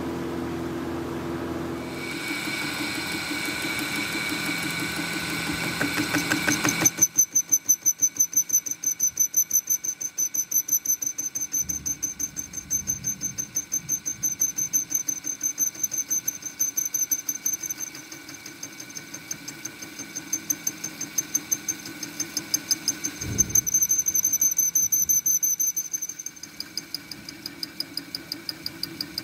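Metal lathe cutting the end of a steel rear-axle housing flange. After a few seconds of steady hum, the tool starts cutting with a fast, even ticking, about three a second, and a high squeal that pulses with it.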